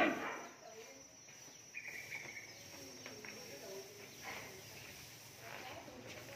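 Faint cattle-shed background: a short, quick chirping trill about two seconds in, over a low, faint wavering murmur.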